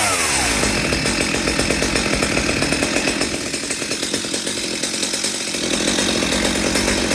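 Stihl MS 250 two-stroke chainsaw engine coming down from a rev and settling into a steady, evenly pulsing idle.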